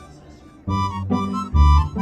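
Background music: a light melodic tune of plucked and reed-like notes over a bass beat. It thins out at the start and comes back in fully about two-thirds of a second in.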